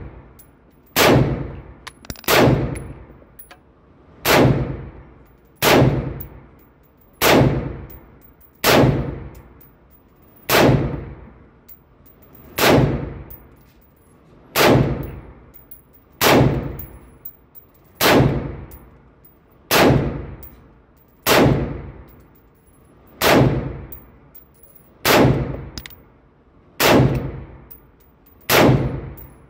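A semi-automatic 5.56 rifle fired at a slow steady pace, about eighteen shots at one every one and a half to two seconds. Each crack rings out in an indoor shooting range.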